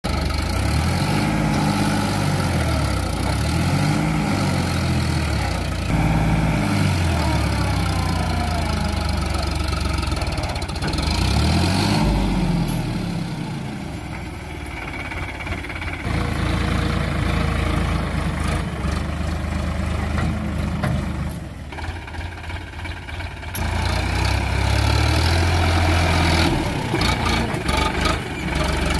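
Sonalika DI 47 RX tractor's diesel engine revving up and down several times and then held at high revs under heavy load as it strains to pull a stuck trolley out of soft soil, with a brief drop in revs a little before the end.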